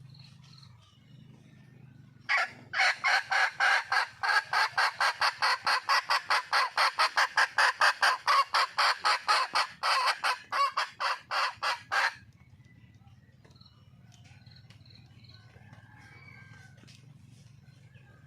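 Junglefowl hen calling: a rapid, even run of short clucking notes, about four a second, starting about two seconds in and lasting about ten seconds. It is a wild hen's call to attract a male.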